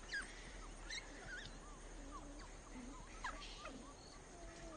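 African wild dog pups giving faint, scattered squeaks and short whines.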